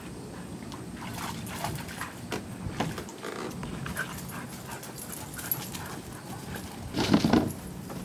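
Two dogs playing rough together: scuffling with short whimpers, and one louder burst of noise about seven seconds in.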